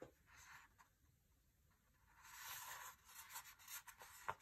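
Faint rustling and scraping of a paper sticker sheet being handled, starting about two seconds in, with a light click near the end.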